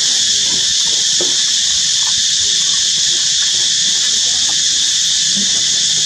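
Steady, high-pitched insect chorus that holds at an even level, with a few faint, scattered low sounds beneath it.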